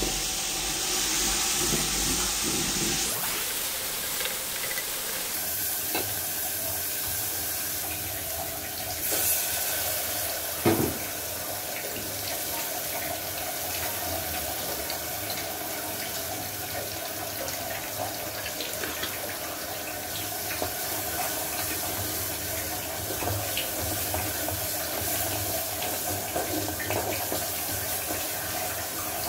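Onion and spice masala sizzling steadily in hot oil in an aluminium pot while it is stirred with a wooden spatula and ground spice is added; one sharp knock about eleven seconds in.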